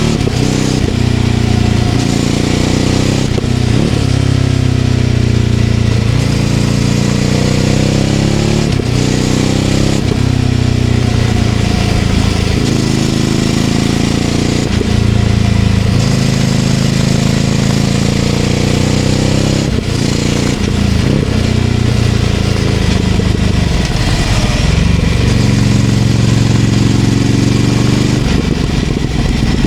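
Ducati Scrambler Icon Dark 800's air-cooled L-twin running through a Leovince LV-10 exhaust while riding, its revs rising and falling over and over as the throttle is opened and closed through the corners.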